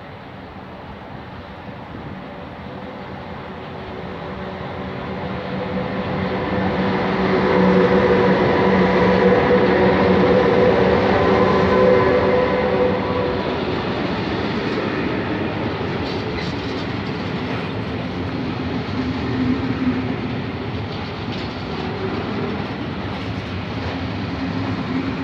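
An electric-hauled intermodal freight train passes close by. The locomotive's hum, with steady whining tones, grows louder as it approaches and is loudest as it goes past. The container and tank wagons then roll by with clicking wheel clatter over the rail joints.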